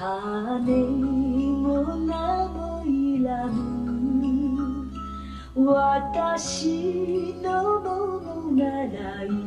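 A song played back from cassette on a Tascam 112 MK II deck: a woman singing a slow melody over instrumental accompaniment, with a louder phrase starting just past halfway.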